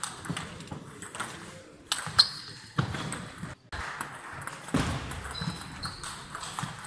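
A table tennis ball clicking off bats and the table during a rally, in sharp irregular clicks. The loudest hit comes about two seconds in.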